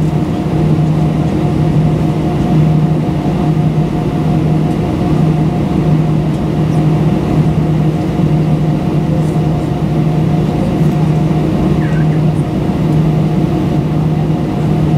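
Steady cabin hum of an Airbus A320 standing with its CFM56-5B engines at idle: an even drone with a constant low tone beneath it.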